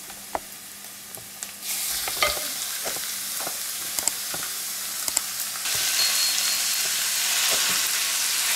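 Minced beef and pork landing in a stainless steel pan of frying onions and sizzling in the hot oil. The sizzle jumps up suddenly about two seconds in as the meat hits the pan, and louder again later as it is pushed around, with scattered taps and scrapes of a spatula against the pan.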